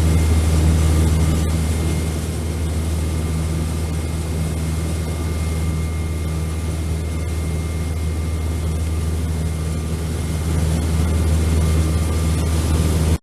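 Charter fishing boat's engine running steadily underway, a loud, even low drone.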